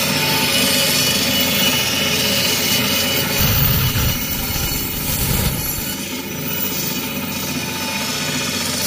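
Meat band saw running steadily as its blade cuts through a dry-cured ham leg, with a deeper low rumble about halfway through, while the blade passes through the bone.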